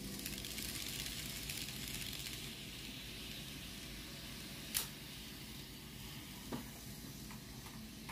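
N-scale model train rolling over Kato Unitrack and a three-way turnout, a steady hiss of wheels and motor that fades as the train moves off. A sharp click comes about five seconds in and a smaller one a second and a half later.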